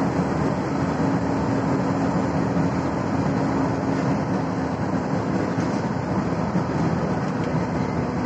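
Steady road noise of a car driving through a road tunnel, heard from inside the cabin: engine and tyre noise with a low hum that fades about halfway through.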